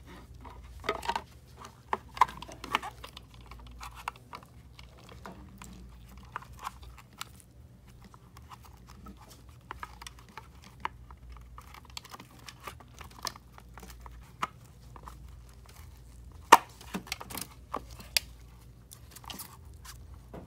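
Handling noise of a plastic external ink tank and its holder in gloved hands: scattered clicks, taps and rustling, with one sharp click about three-quarters of the way through.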